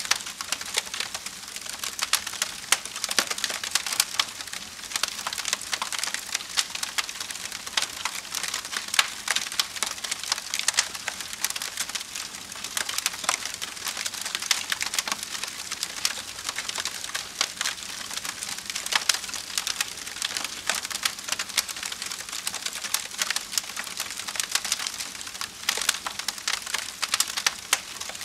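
Wood campfire burning, with dense irregular crackling and sharp pops over a steady hiss.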